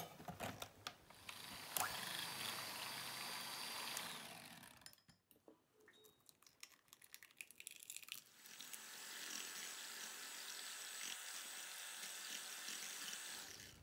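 Electric hand mixer beating eggs into a creamed butter-and-sugar batter in a glass bowl. It runs in two stretches, about two seconds and then about five seconds, and a few light taps of an egg being cracked fall in the pause between.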